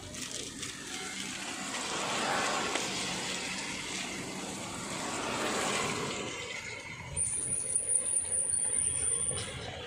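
Traffic passing on a wet road: tyre hiss swells and fades twice. A thin, high-pitched steady whine joins about seven seconds in and lasts a couple of seconds.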